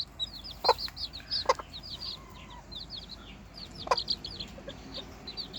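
Chicks peeping continuously in quick, high, falling chirps, with a mother hen giving three short clucks over them.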